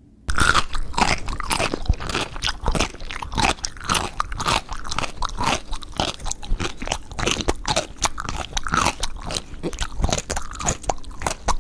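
Biting into and chewing a McDonald's McRib sandwich: dense, irregular crunching and chewing mouth sounds that start suddenly just after the beginning and go on without a pause.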